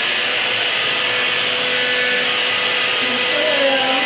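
Hair dryer running steadily on high, a continuous rush of air over a faint motor hum.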